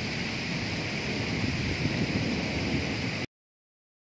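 Heavy rain pouring steadily, with wind rumbling on the microphone. The sound cuts off abruptly about three seconds in.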